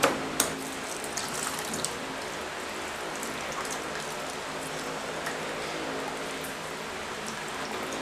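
Pineapple juice trickling and dripping into a bowl as the mashed pulp is wrung by hand in a cloth strainer. A few light knocks of the wooden masher come in the first couple of seconds.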